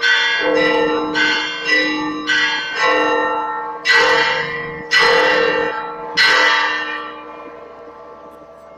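Church bells of the Church of the Holy Sepulchre ringing the call to the evening service. Several bells of different pitch are struck in quick succession, then three slower strokes, the last about six seconds in, after which the ringing dies away.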